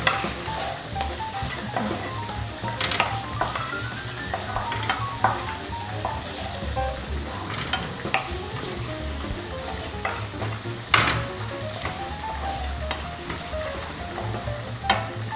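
Chopped onions and garlic sizzling in olive oil in a frying pan while a wooden spoon stirs and scrapes them, with a few sharp knocks of the spoon against the pan.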